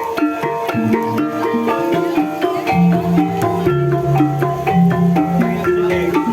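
Javanese gamelan music accompanying an ebeg horse dance: metallophones strike a quick, busy run of ringing notes over percussion strokes.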